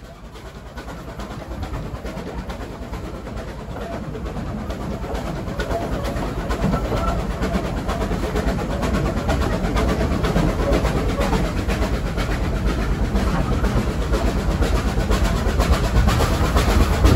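Double-headed narrow-gauge steam train running uphill, heard from an open carriage window: wheels clattering over the rail joints and the engines working, growing steadily louder.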